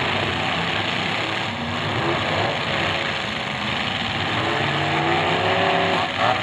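Several full-size demolition derby cars' engines running hard and revving together, their pitch rising and falling over a dense, steady engine din.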